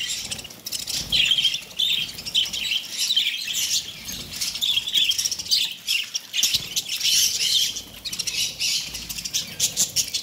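A flock of budgerigars chattering: dense, overlapping high chirps and warbles, with scattered short clicks among them.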